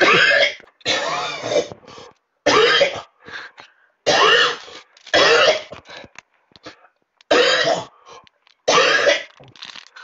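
Repeated loud, harsh coughing: about seven separate coughs, each about half a second long and with a wavering, honking pitch, one every second or so.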